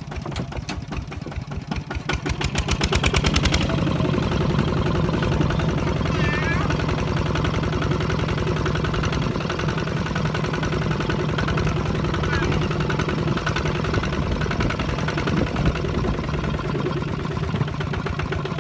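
A small engine speeding up over the first few seconds, its firing strokes quickening and growing louder, then running steadily.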